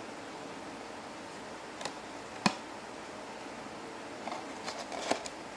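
Hands handling a thin cardboard puzzle box and folding its flaps shut, with scattered small taps and clicks over a steady hiss. One sharper click comes about halfway through, and a quick cluster of small ones comes near the end.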